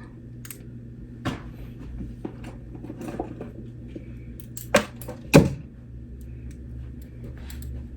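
Bracelets being picked up and put on: scattered light clicks and clinks of jewellery, with two sharper clinks about five seconds in, over a steady low hum.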